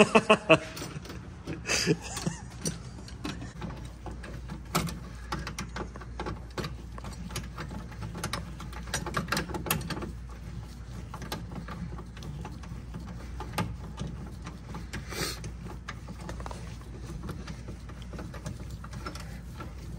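Scattered clicks, small knocks and light rattles of hand tools and door parts being handled and fastened, over a steady low hum.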